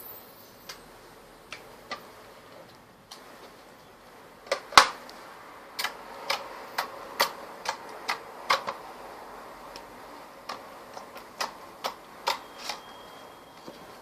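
Clear violet crystal slime being pressed and poked by hand, giving sharp irregular clicks and pops, about one or two a second, the loudest about five seconds in.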